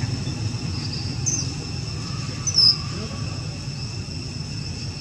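Steady high insect drone, crickets or cicadas, over a low rumble, with two short high squeaks about a second and two and a half seconds in, the second louder and falling in pitch.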